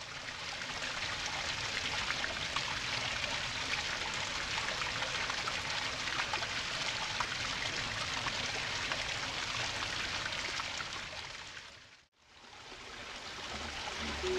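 Stream water rushing and splashing steadily as it pours over a 1/10-scale RC crawler. It fades out briefly near the end and comes back.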